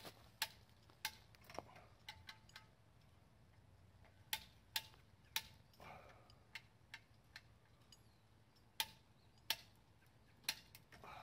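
Hand come-along ratchet clicking as its lever is worked to tension the rope: sharp single clicks and pairs, irregular, with pauses between strokes.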